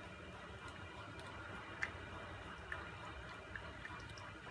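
Wooden spoon stirring béchamel sauce in a saucepan, with light clicks of the spoon against the pan about once a second over a faint steady hiss.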